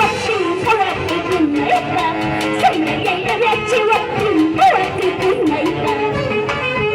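Huancavelica-style huayno played by an Andean orquesta: melody lines over a steady rhythmic beat.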